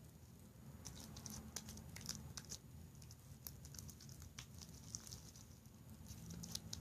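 Faint, irregular sticky clicks and squelches of homemade slime being worked and squished by hand, over a low steady hum.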